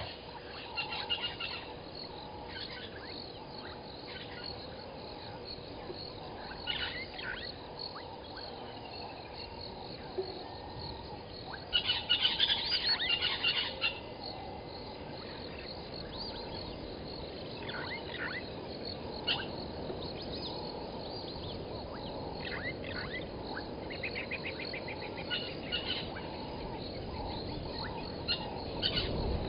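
Wild birds calling and chirping in short scattered notes over a steady background hiss. There is a louder burst of calling about twelve seconds in and a quick rattling trill later on.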